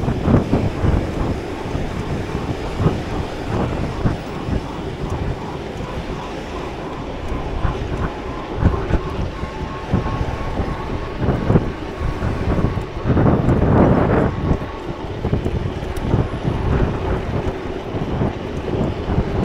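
Loud wind noise buffeting a bike-mounted camera's microphone while cycling, gusting unevenly and loudest about two thirds of the way through, with road traffic underneath.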